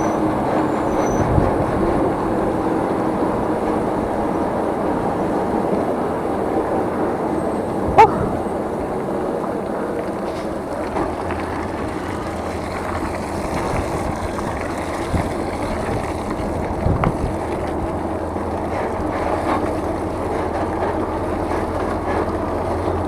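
Steady rush of wind and road noise while riding a bicycle on a road in strong wind, with one sharp click about eight seconds in and a few lighter knocks later.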